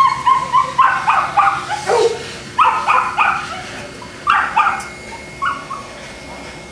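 Boston Terrier yipping in quick runs of short, high barks, tailing off after about five seconds.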